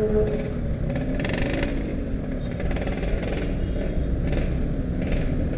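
Yamaha RX-King's two-stroke single-cylinder engine running on the move, its pitch rising and falling a little with the throttle.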